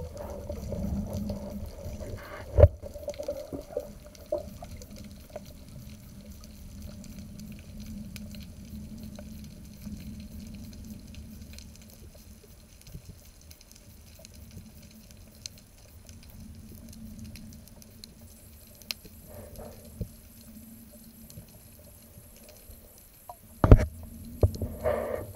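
Underwater sound picked up through an action camera's waterproof housing during a spearfishing dive: a steady muffled rumble of water moving past the housing. Sharp knocks come through, one a few seconds in and the loudest near the end.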